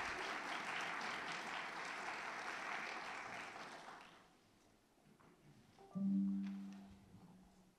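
Audience applauding, fading out about four seconds in. About two seconds later a single low ringing note sounds and dies away over a second or so.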